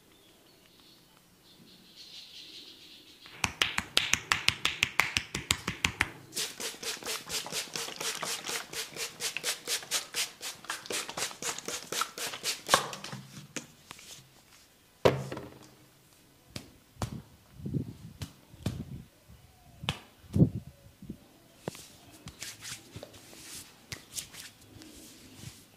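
Hands of an Indian head massage rapidly tapping and slapping on a head: a fast, even patter of sharp strikes, about five or six a second, beginning a few seconds in and lasting about ten seconds. After it come slower, scattered pats and dull thumps.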